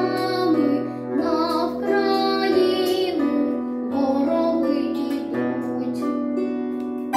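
A boy singing a Ukrainian song over instrumental accompaniment, the voice held on long, wavering notes above a steady bass line.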